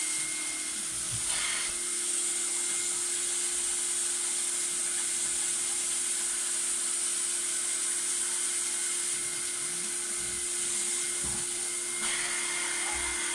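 Vacuum motor of a mattress-cleaning machine running steadily, sucking air through its hose and upholstery tool as the tool is drawn across the mattress, a high hiss over a steady hum.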